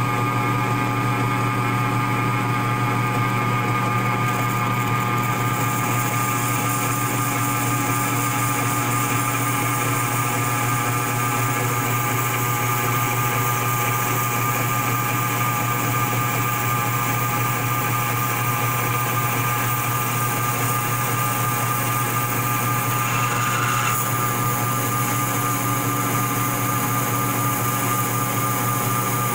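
Logan 2955V variable-speed metal lathe running under power, turning a metal workpiece while a carbide insert tool takes a cut. A steady hum from the motor and drive, with a hiss over it.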